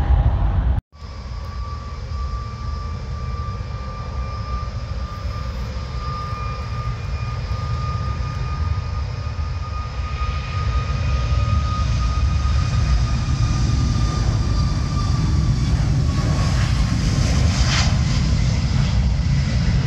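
Boeing 737 jet airliner's engines on the runway: a steady high-pitched whine over a low rumble and wind noise. It grows louder toward the end as the jet draws nearer, after a brief dropout about a second in.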